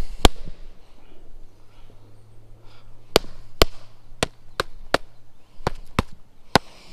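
A series of sharp slaps, about eight and unevenly spaced: one just after the start, then the rest crowded into the second half, as ants are swatted and knocked off feet, socks and shoes.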